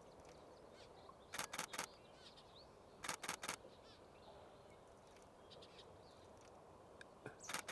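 Nikon Z6 II camera shutter firing in three quick bursts of about three frames each, roughly five clicks a second, with faint bird chirps in the background.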